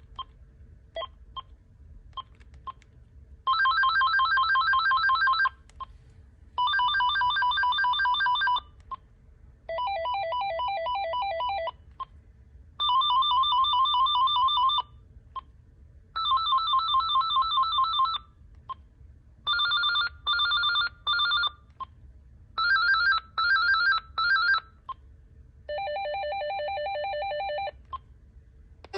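AT&T E5960C cordless phone handset playing its built-in electronic ringer tones one after another, eight in all. Each is a rapid warbling trill of about two seconds with its own pitch and pattern; the sixth and seventh come in broken pulses. Short clicks, the handset's keys being pressed, fall in the gaps between them.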